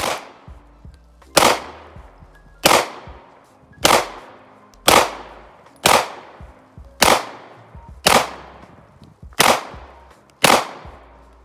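Ten handgun shots fired singly at a slow, even pace, about one a second, each trailing off briefly after the crack.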